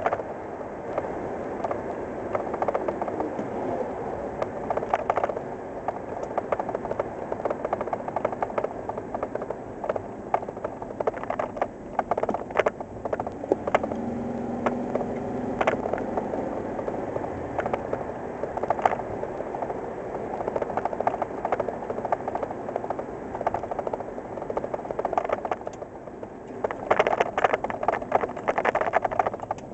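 Cab noise of a 1987 Ford Ranger pickup driving at road speed, its 2.9-litre Cologne V6 running under a steady rumble of road and wind noise, with frequent rattles and knocks from the truck. A louder spell of rattling comes near the end.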